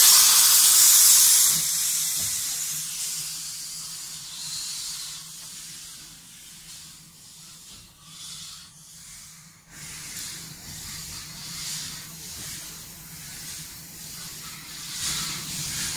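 Saddle-tank steam locomotive letting off a loud hiss of steam that dies away over the first two seconds. A softer hiss carries on as the engine moves along the line.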